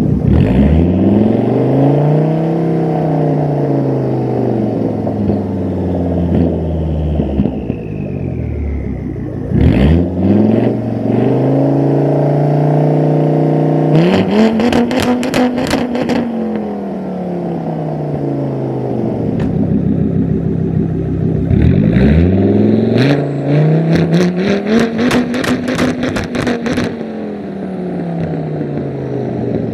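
Volvo S60 2.5T's turbocharged inline five-cylinder, straight-piped with a catless 3-inch exhaust and a big turbo, revving up and easing off three times. A turbo whistle falls away as the revs drop. Rapid crackles and pops come from the exhaust on lift-off, about halfway through and again near the end.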